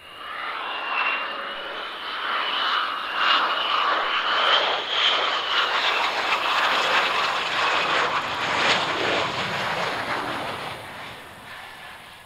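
Lockheed Martin F-22 Raptor's twin Pratt & Whitney F119 turbofans passing close on landing with gear down: a loud jet roar with a high whine that rises a little and then falls away as the sound fades near the end.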